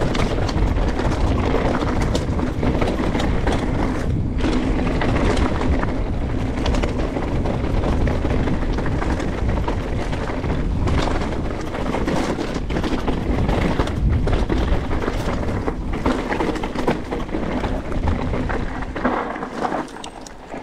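Canyon Strive enduro mountain bike descending fast on a rough dirt trail: tyres rumbling over the ground and the bike rattling, with wind on the camera microphone. The noise drops out briefly a few times and dies down near the end.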